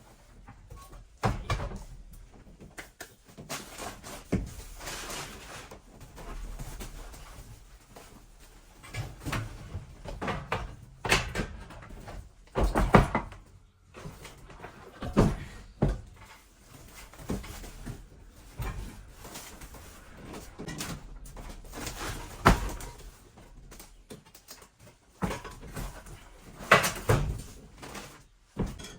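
Irregular knocks and clunks of hard objects being handled and set down, with several louder bangs like doors or lids shutting.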